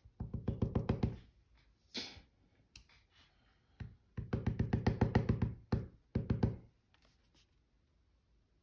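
Clear stamp on an acrylic block tapped quickly and repeatedly against an ink pad to ink it. The taps come in short runs of about seven knocks a second.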